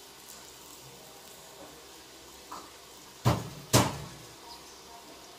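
Two sharp knocks in the kitchen, about half a second apart, each ringing on briefly, with a fainter tap a little before them.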